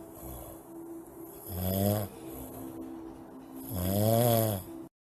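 A person snoring: two loud, rough snores about two seconds apart, the second one longer, with a softer steady drone between them. The sound cuts off suddenly near the end.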